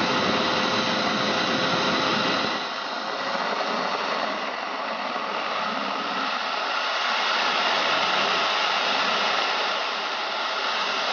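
IQ Hammer 200+ model jet turbine running steadily on the ground: a loud rushing hiss with a steady whine.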